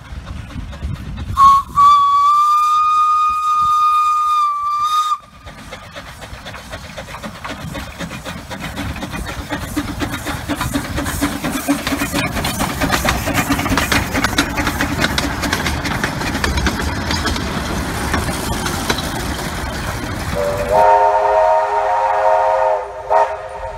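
A small narrow-gauge steam locomotive sounds a shrill single-note steam whistle for about four seconds, the loudest sound here. Then comes a long stretch of hissing steam and quick exhaust beats as the locomotive works along. Near the end a full-size steam locomotive, NSWR C35 class 3526, sounds a deeper chime whistle of several notes for about two seconds.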